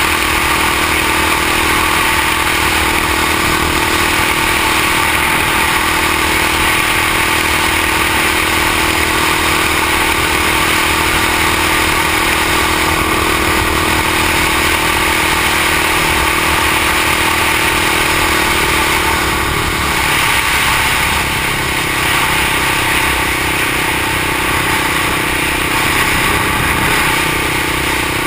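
Honda XR650L single-cylinder four-stroke engine of a street-legal three-wheeler running steadily at cruising speed, with wind and road noise over it. The note changes and the level dips slightly about twenty seconds in.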